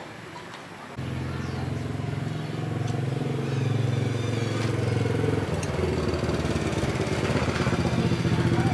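A small motorcycle engine running nearby comes in abruptly about a second in and keeps a steady note. About halfway through its sound changes to a fast, even pulsing. It is not the dismantled engine on the floor.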